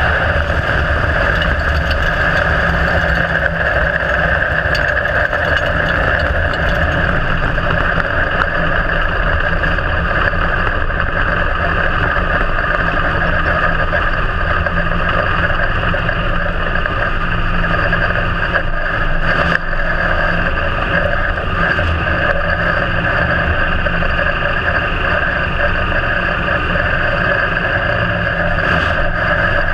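IMCA Modified dirt-track car's V8 engine running steadily at low throttle, heard loud from inside the open cockpit as the car rolls slowly off the track after the race. There is a brief dip in the sound about two-thirds of the way through.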